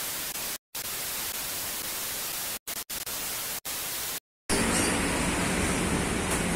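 TV static: a steady white-noise hiss that drops out in several brief silent gaps. About four and a half seconds in it cuts to a louder, steady background noise with a low hum.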